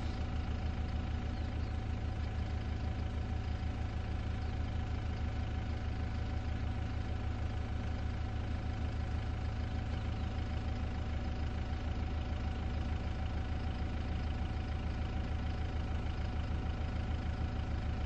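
An engine idling steadily with a low, even pulse.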